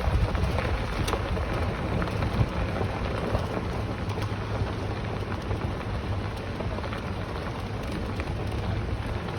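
Steady rumble and hiss of a vehicle driving slowly along a road, with a few faint clicks.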